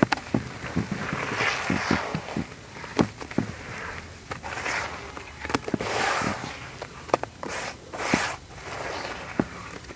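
Stony black sand-and-cement heart shapes crumbling and breaking apart in foamy water: many sharp crunchy crackles, with a few short hissy washes of crumbling in between.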